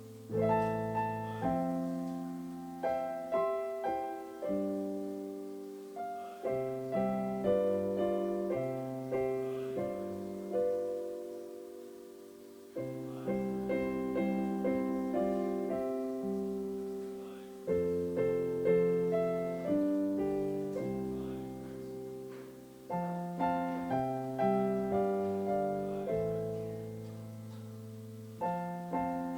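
Solo piano playing a slow, hymn-like piece in struck chords that ring and fade, in phrases with short breaks between them.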